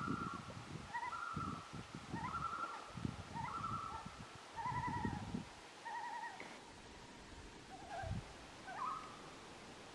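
Several common loons calling at once: quavering tremolo calls and short wavering notes that overlap at different pitches and die away about nine seconds in. A rough low rumbling runs underneath for the first half and once more near the end.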